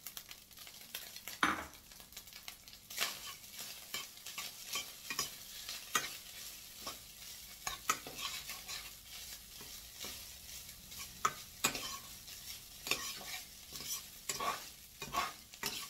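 Cooked rice frying in hot oil in a metal pan, with a steady sizzle and the spatula scraping and knocking irregularly against the pan as the rice is stirred.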